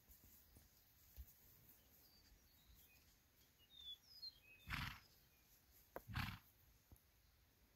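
Near silence outdoors, with a few faint high chirps and then two short rushing bursts of noise about five and six seconds in.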